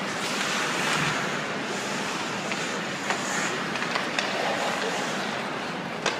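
Ice hockey rink during play: a steady noisy wash of skates on the ice and arena noise, cut by several sharp clacks of sticks and puck. The loudest clacks come about 3 and 4 seconds in and just before the end.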